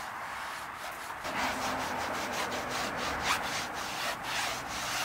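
Microfiber towel rubbing over a car door's lower trim to wipe off interior cleaner, in quick back-and-forth strokes, about three a second. The strokes get firmer about a second in.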